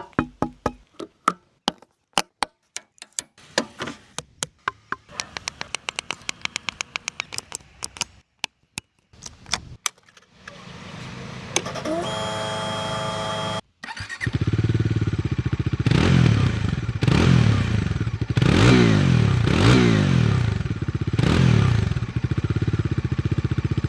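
A 2025 Bajaj Dominar 400 with its 373 cc single-cylinder engine: first a run of clicks and rapid ticking, then a steady tone for about two seconds. Then the engine starts and settles to idle, is blipped five times with quick rises and falls in revs, and idles again.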